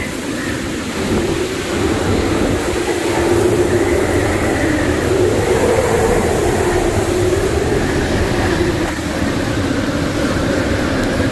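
Hurricane-force wind in a hurricane eyewall blowing steadily, with a whistling tone that wavers up and down in pitch as the gusts rise and fall.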